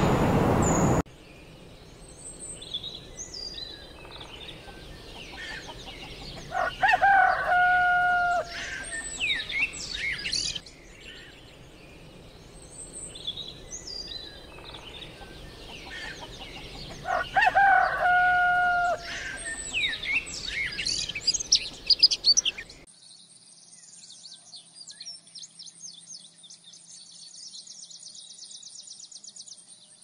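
Rooster crowing twice, about ten seconds apart, over small birds chirping. About three quarters of the way through this gives way to a high, rapidly pulsing buzz.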